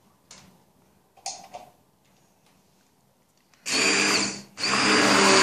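A couple of light knocks, then about three and a half seconds in a hand-held stick blender switches on and runs with a steady motor whine, blending eggs, sugar, milk and oil. It cuts out for a moment once and starts again.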